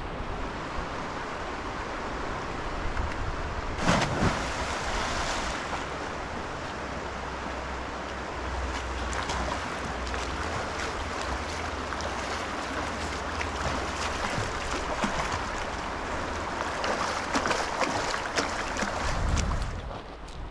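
River water splashing and lapping as a person swims through shallow water, with wind buffeting the microphone. A sudden louder noise about four seconds in, and a run of splashes near the end as the swimmer strokes.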